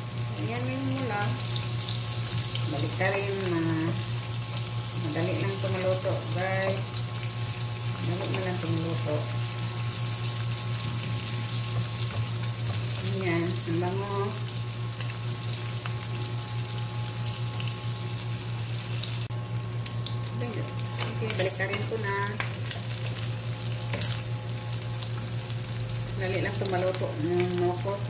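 Fish frying in hot oil in a non-stick pan: a steady sizzle, with a wooden spatula stirring now and then.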